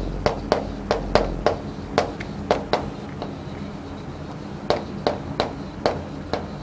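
Chalk tapping and scraping on a chalkboard as words are written: a series of sharp ticks a few per second, a pause of about a second and a half in the middle, then another run of ticks.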